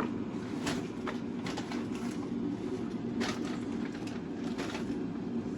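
Groceries being handled, a handful of short rustles and knocks as bags and packages are searched through, over a steady low hum.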